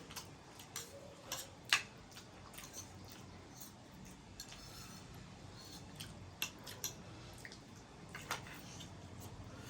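Eating sounds: scattered small clicks and taps of utensils against a noodle bowl, the sharpest a little under two seconds in.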